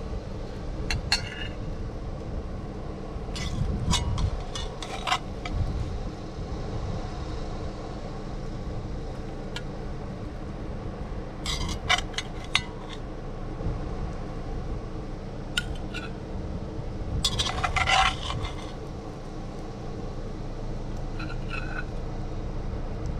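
Metal serving utensils clinking and scraping against a cast iron Dutch oven and ceramic plates as food is dished out, in scattered bursts of short clinks, the busiest just before the middle and again about three-quarters of the way in. A steady low rumble runs underneath.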